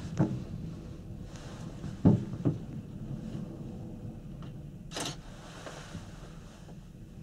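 Inside a Panoramic Mont Blanc gondola cabin running along its cable: a steady low rumble with a few sharp knocks, the loudest about two seconds in followed by a second, and a short rush of hissing noise about five seconds in.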